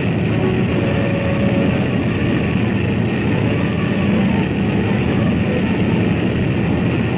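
Convair B-36 bomber's engines running steadily as the aircraft taxis: a dense, even, low engine drone with no change in level, dull-sounding as on an old film soundtrack.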